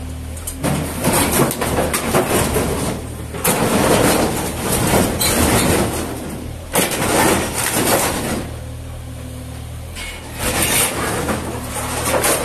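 Yanmar SV18 mini excavator's diesel engine running steadily while its bucket breaks up and drags through floor rubble, with repeated crunching and scraping. About eight and a half seconds in, the crunching stops briefly and only the engine hum is left, then it picks up again near the end.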